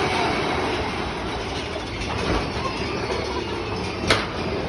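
Big Thunder Mountain Railroad mine-train roller coaster cars rolling on the track with a steady rumble, and a single sharp clack about four seconds in.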